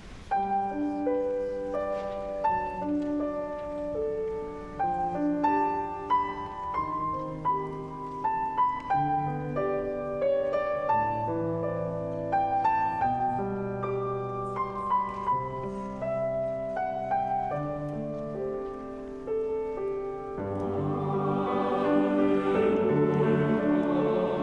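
Quiet, slow piano introduction on a Steinway grand, single sustained chords and melody notes. About 20 seconds in, the chamber choir enters singing, the sound growing fuller and louder.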